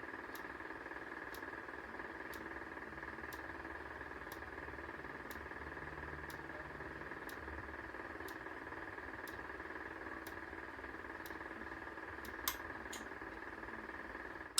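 Faint ticks about once a second from a System Sensor L-Series amber alert strobe flashing, which stays on while the fire alarm panel re-initializes after a reset because it is set as non-silenceable. A steady electrical hum runs underneath, and there is one louder click near the end.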